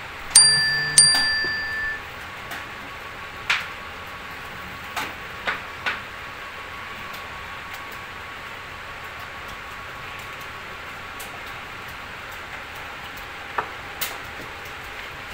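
Subscribe-animation bell sound effect: two bright electronic dings, a little over half a second apart, each ringing out for about a second. After that come a few scattered faint clicks over a steady low hum.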